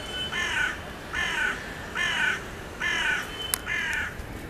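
A crow cawing in a steady series, about one short harsh caw a second, each falling slightly in pitch, stopping about four seconds in.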